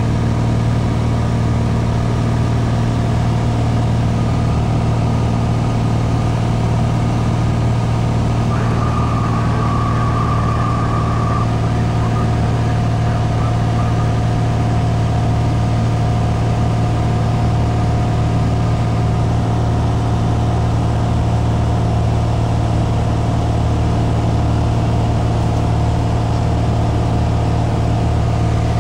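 Single-engine piston light aircraft's engine and propeller droning steadily in cruise, heard inside the cabin. A brief higher tone sounds for about three seconds roughly a third of the way in.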